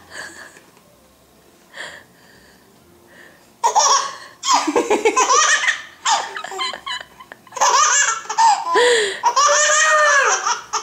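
Infant laughing in hearty belly-laugh bouts, high-pitched and rising and falling, starting after a quiet first few seconds.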